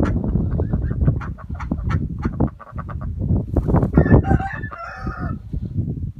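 A rooster crows once, about four seconds in, over rapid short knocks and rustles from the birds.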